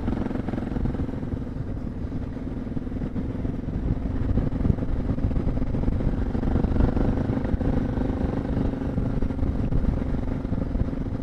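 A 2017 Suzuki DR650's single-cylinder engine running steadily under way on a dirt climb, at an even engine speed.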